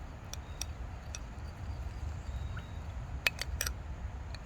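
A spoon stirring honey into a mix of herb, lemon and ginger juice, clinking sharply against its container a few times: three light clinks in the first second, then a quicker cluster of three about three seconds in.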